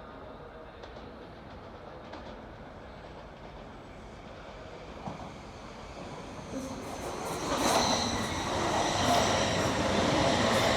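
A train approaching on the rails: a low rumble for the first two-thirds, then the sound grows quickly louder, with a run of wheel clicks over the rail joints as it comes close.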